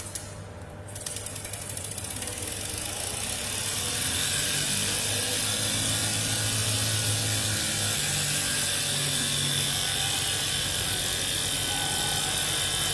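Homemade steam engine running with a fast clatter and a strong hiss. It starts about a second in, grows louder over the next few seconds as it picks up speed, then runs steadily.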